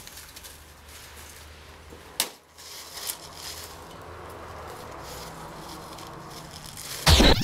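Snow shovel scraping and knocking at icy snow on a trampoline mat, with a sharp knock about two seconds in. A short, loud burst of noise comes near the end.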